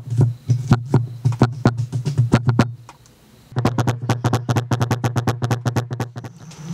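Cleaver chopping garlic on a thick wooden chopping block: a run of steady chops, a short pause about three seconds in, then faster, quicker chopping as the garlic is minced fine.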